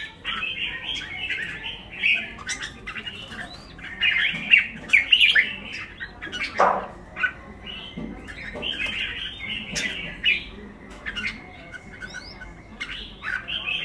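Several red-whiskered bulbuls of pied colour morphs chattering and calling over one another in quick, harsh phrases, with one loud downward-sweeping call about halfway through.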